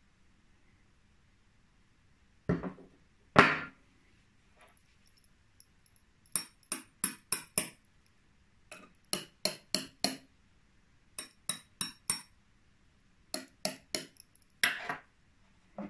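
Aluminium T-1000 claw replica tapped with a metal rod in quick runs of four or five taps, each with a short high metallic ring. Two heavier knocks come a few seconds before the first run and another just before the end, as the claws are set down on the wooden table.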